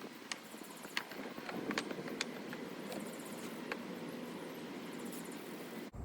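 Wooden hive top bars clacking sharply, several separate knocks, as they are set side by side on a top-bar hive. Under the knocks runs a steady hum of honeybees.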